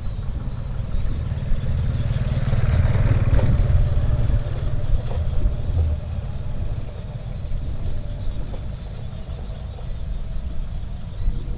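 Steady low rumble of a vehicle on the move, with a louder rushing swell about two to four seconds in.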